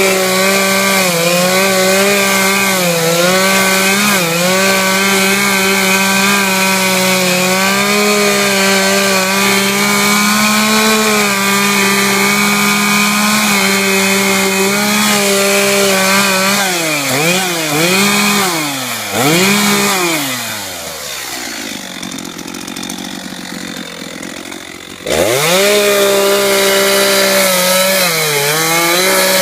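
Two-stroke chainsaw running at high revs, steady for a long stretch, then revving down and up several times, idling quietly for about four seconds, and snapping back to full throttle about four seconds before the end.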